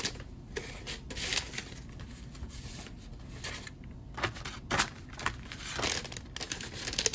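Paper wrapping being handled: scattered rustles and crinkles with a few soft taps.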